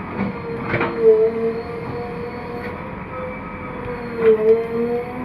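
JCB 3DX backhoe loader's diesel engine running steadily under load while digging, its pitch sagging briefly twice, with a few short knocks.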